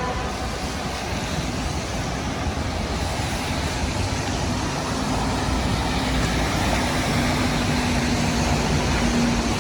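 City street traffic noise: a steady low engine and tyre rumble of passing road vehicles, with a faint steady hum coming in about halfway through.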